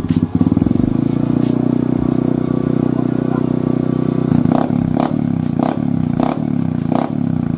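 Yamaha Jupiter's four-stroke single running through a gutted ('bobok') muffler, which is made for a deep, bassy exhaust note. It holds a steady note, then from about four seconds in gives a run of sharp exhaust cracks about every two-thirds of a second.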